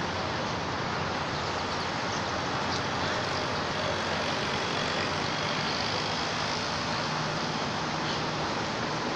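Steady outdoor background noise: a constant hiss with a low rumble underneath.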